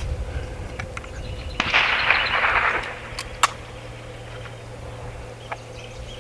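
A single shot from an AEA Challenger Pro .30 calibre regulated PCP air rifle: one sharp crack about three and a half seconds in. About a second before it comes a noisy rush lasting about a second.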